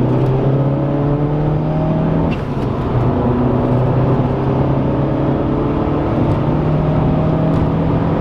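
Turbocharged Saab engine accelerating under load, its revs climbing. About two seconds in there is a short break and a drop in pitch, as at a gear change, and then the revs climb again.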